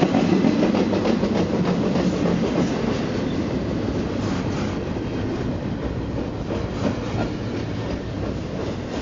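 Double-stack container freight cars rolling past close by: a steady rumble of steel wheels on the rails with repeated clacks, a little louder in the first few seconds.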